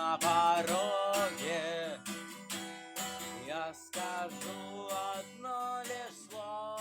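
Acoustic guitar strummed in steady chords, the closing bars of a song, growing quieter after the first couple of seconds.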